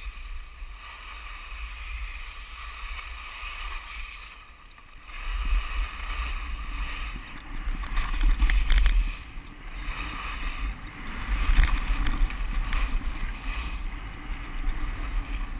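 Skis scraping and chattering over hard, icy snow during a downhill run, with wind rumbling on the microphone, louder from about a third of the way in.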